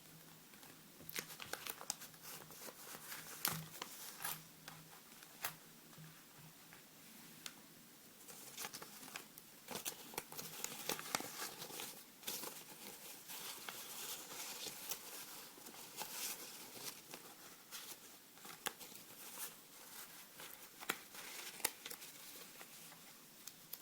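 Paper banknotes being handled and crinkled close to the microphone, with many sharp crackles throughout.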